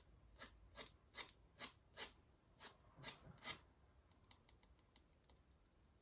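Quiet scratching of a fineliner ink pen on watercolour paper in quick short strokes, about nine in the first three and a half seconds, then a few faint ticks.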